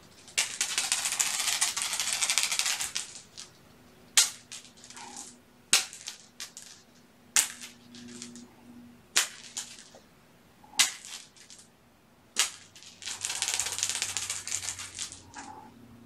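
Two long stretches of crinkling and crackling, something crinkly being handled, with single sharp clicks between them about every second and a half.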